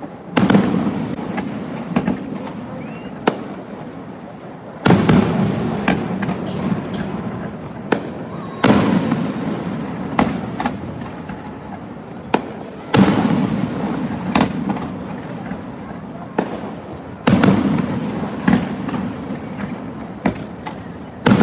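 Aerial fireworks shells bursting, with a loud boom about every four seconds that trails off over the next few seconds and sharper single cracks in between.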